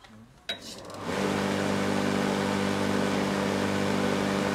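Electric lawn mower switched on: a click about half a second in, the motor spinning up over the next half second, then running with a steady hum.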